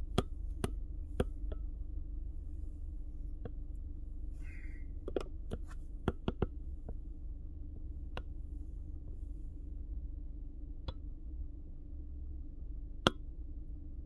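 Steady low rumble of a car's interior, with scattered light clicks and taps at uneven intervals; the sharpest comes about a second before the end.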